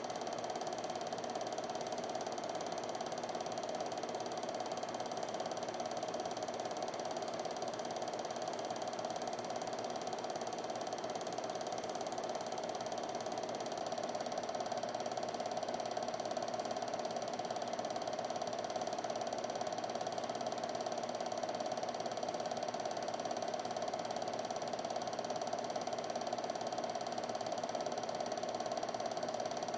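Home-movie film projector running: a steady mechanical clatter and hum that does not change.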